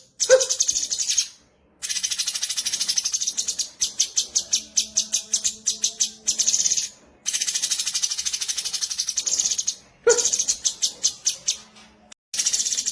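Cucak cungkok birdsong: runs of rapid, high-pitched repeated notes, about ten a second, each run lasting one to three seconds with short breaks between, some runs opening with a lower note.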